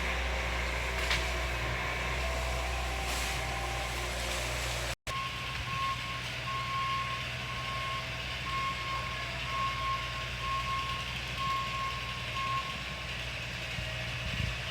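Heavy vehicle's engine running steadily while its reversing alarm beeps at about two beeps a second for several seconds, then stops.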